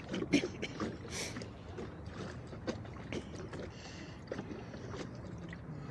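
Water slapping and splashing around a small rowboat, with irregular light knocks and clicks against the hull; the sharpest knock comes about a third of a second in.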